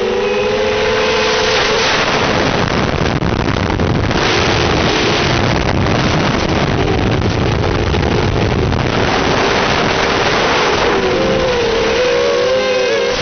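FPV drone's motors and propellers whining, the pitch wavering up and down as the throttle changes. A rushing hiss covers the whine through the middle stretch, and the wavering whine comes back strongly near the end.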